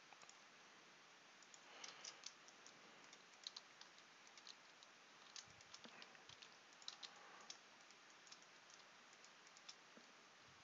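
Faint, irregular clicks of computer keyboard keys being pressed, over a low steady hiss.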